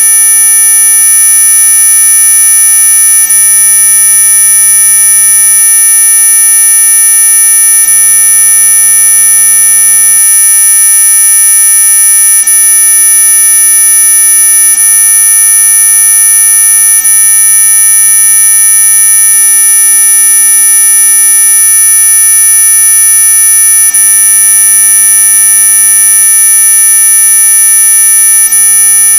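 Synthetic mosquito-repellent sound effect: a loud, steady, high-pitched electronic whine made of several unchanging tones layered together, the strongest very high. It is meant to drive mosquitoes away, though much of it lies well within hearing rather than being truly ultrasonic.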